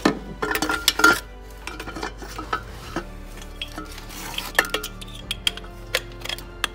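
Metal clanks and clinks as exhaust parts and tools are handled in the engine bay of an Audi A4 2.0T while the catalytic converter is worked loose. A cluster of sharp knocks comes in the first second or so, then scattered single clicks, over a faint steady hum.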